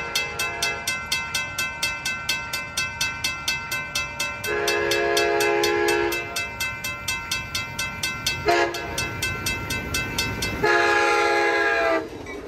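A railroad crossing's warning bell ringing rapidly, about four strokes a second, while an approaching Amtrak train sounds its horn in four blasts: long, long, very short, long. This is the standard signal for a grade crossing.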